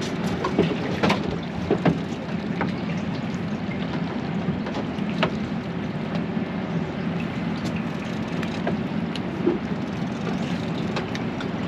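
Sportfishing boat's engine running steadily at a low hum, with scattered sharp clicks and knocks.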